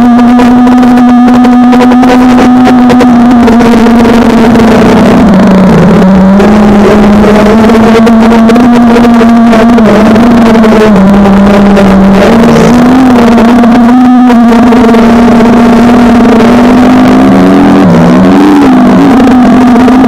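Whine of an FPV quadcopter's motors and propellers picked up by its onboard camera, loud and steady in pitch, dipping and wobbling as the throttle changes, about five seconds in and again near the end.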